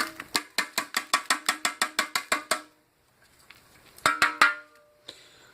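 A metal tool clicking rapidly against the edge of a sterling silver dresser-set piece, about six clicks a second with a faint metallic ring, then a short second burst of clicks near the end. It is the last resin being picked out of the silver's edges.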